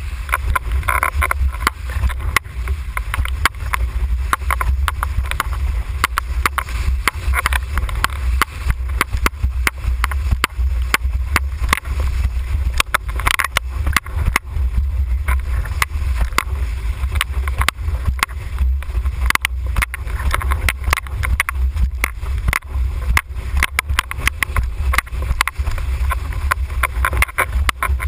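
Windsurfing board planing over choppy water: a steady low rumble of wind on the boom-mounted camera's microphone, with frequent sharp slaps and spray hits against the board and rig.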